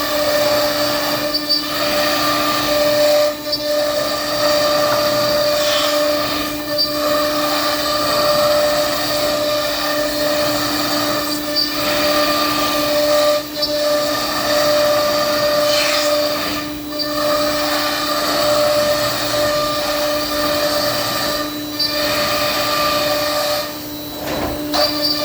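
Thermwood CS-45 CNC router running, its spindle giving a steady high whine over a loud mechanical rush, with brief dips every few seconds.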